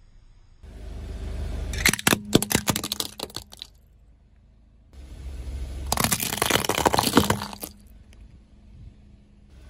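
A car tyre rolls over plastic toys, twice. Each time a low rumble of the car builds, then a quick run of sharp cracks and snaps as the plastic breaks, starting about two seconds in and again about six seconds in.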